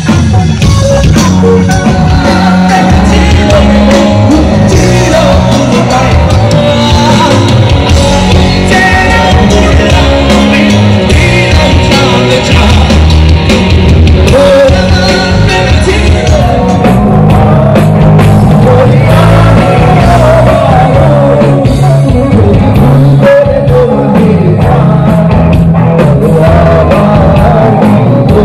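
Loud amplified live rock band playing: a singer over electric guitar, keyboard and a heavy bass and drum line.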